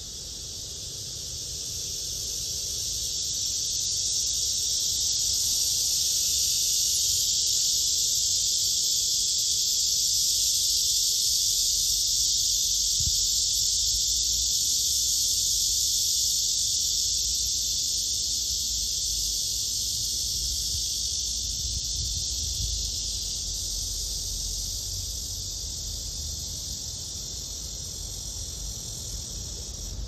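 Male blackish cicada (Cryptotympana atrata) giving its continuous shrill buzz. It swells over the first few seconds and slowly fades over the last ten.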